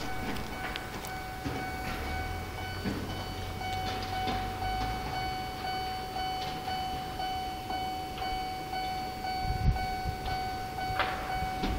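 Japanese level-crossing warning bell ringing: a steady electronic ding repeating over and over, the signal that a train is approaching. A low rumble sits under it for the first few seconds.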